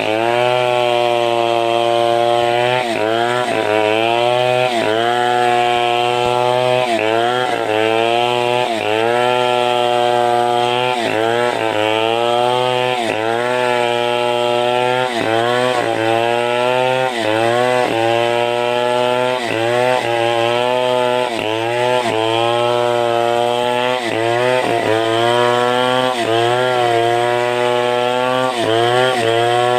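Two-stroke chainsaw running at high speed through sengon wood, its engine pitch dipping briefly about every one and a half seconds as the chain bites and it comes under load.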